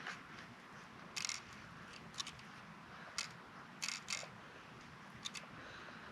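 Faint, irregular clicks and light rattles of BBs being loaded into the magazine of a Crosman DPMS SBR full-auto BB rifle.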